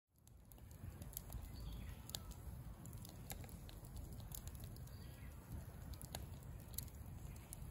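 Scattered light clicks and scrapes of a utensil in a skillet as scrambled egg is scooped out, over a steady low rumble of wind or handling noise.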